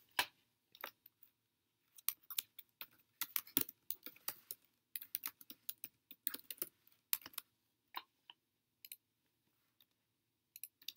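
Typing on a computer keyboard: runs of quick keystrokes for the first seven seconds or so, then only a few scattered clicks.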